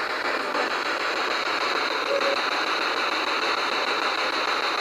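A steady, even hiss of static with no voices in it and only a faint short tone about two seconds in.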